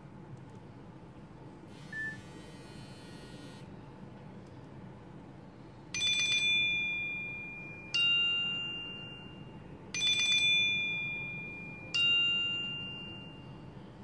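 Nokia 6700 Slide loudspeaker playing ringtone previews. A brief short tone sounds about two seconds in. Then, from about six seconds, a ringing tone sounds four times, two seconds apart, alternating between two pitches, each ring fading away.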